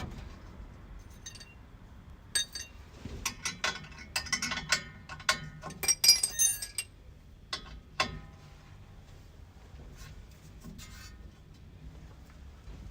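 Metal hand tools clinking and rattling against each other: a run of sharp clinks with short metallic ringing, thickest in the middle and tailing off about eight seconds in.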